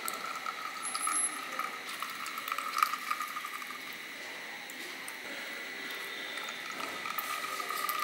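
Lemon juice trickling in a thin stream from a small steel cup onto raw chicken pieces in a steel bowl. The pour eases off in the middle and then runs again near the end.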